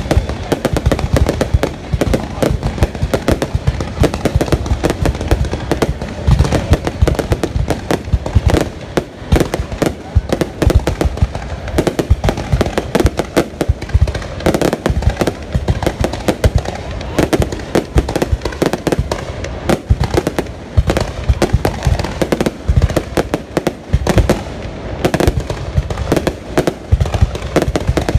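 Fireworks going off in a dense, continuous barrage of rapid loud bangs, many a second, without a pause.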